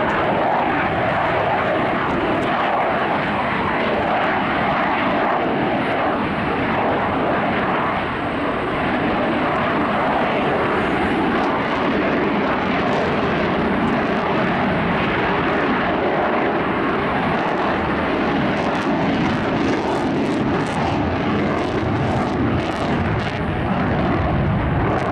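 F-35B Lightning II's single F135 turbofan engine, a loud steady jet roar from the aircraft in flight, with a few sharp crackles in the last few seconds.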